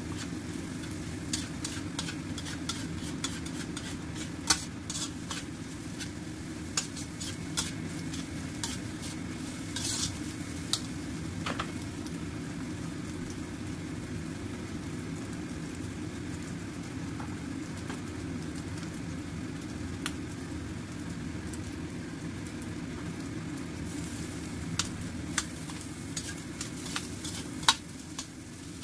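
Metal spatula scraping and clinking against a stainless steel wok while egg and vegetables sizzle in the oil, over a steady low background noise. The clinks come in busy clusters through the first third and again near the end, with a quieter stretch of plain frying between.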